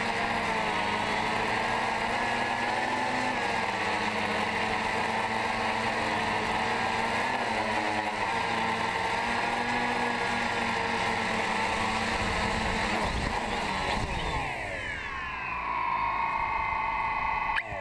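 DJI Phantom 2 quadcopter's motors and 9-inch carbon-fibre propellers buzzing steadily in flight. About three quarters of the way through the pitch falls as the drone sets down on the ground, and it carries on at a lower steady hum.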